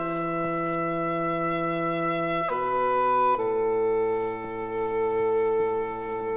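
Background music: sustained woodwind notes, a few long held chords changing pitch every second or two, with a bass line beneath.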